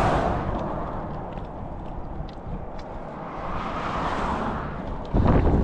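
Road noise from vehicles passing on a highway, swelling and fading twice. About five seconds in, a loud low rumble of wind buffeting the microphone cuts in suddenly.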